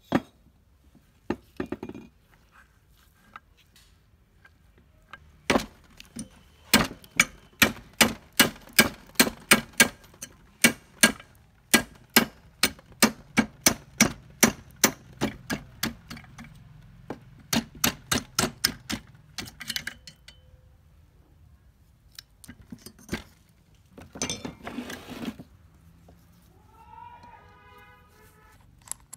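Sharp metal strikes in a steady series, about three a second for some fifteen seconds, like a hammer tapping on a metal part. A short scraping burst follows, and a rooster crows near the end.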